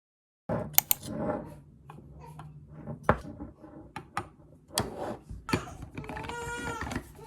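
Clicks and knocks of things being handled over a steady low hum. About six seconds in, a month-old baby starts crying.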